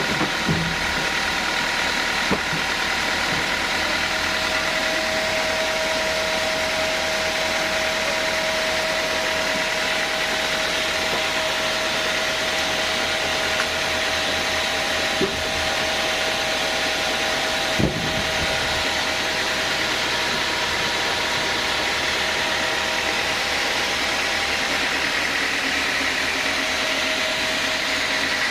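Sawmill band saw running steadily, a constant mechanical drone with a few held tones, broken by a few short knocks, two of them near the start and two more past the middle.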